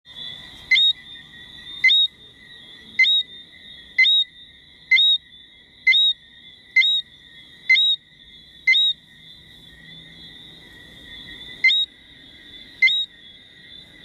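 A small frog calling nearby, a short rising whistle about once a second, eleven calls with a pause of a few seconds near the end, over a steady high-pitched chorus of many more distant frogs.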